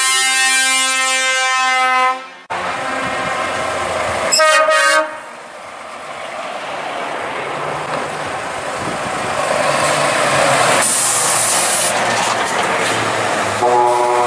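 Truck air horns sounding a loud chord of several tones that stops abruptly about two and a half seconds in, then a short horn blast about four and a half seconds in. Between blasts a truck's diesel engine is heard passing, with a sharp hiss around eleven seconds, and the horns start again near the end.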